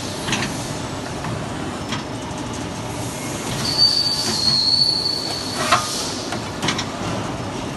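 CNC pipe bending machine running, with clicks and knocks and a high metallic squeal lasting about two seconds midway.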